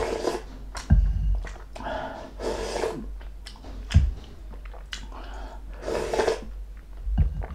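Close-up eating sounds: slurping ginisang monggo (mung bean soup) off a wooden spoon at the start and again near the end, with chewing of crispy pork knuckle in between. A few dull thumps are also heard.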